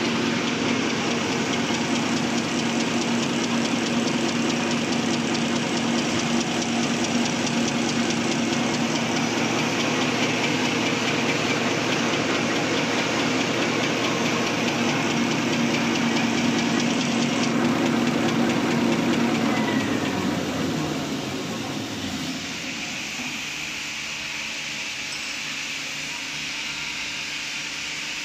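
Automatic double-deck serviette tissue folding machine running with a steady mechanical hum and clatter. About twenty seconds in, its drive winds down, the pitch sliding lower over a couple of seconds as it coasts to a stop, leaving a quieter steady hum.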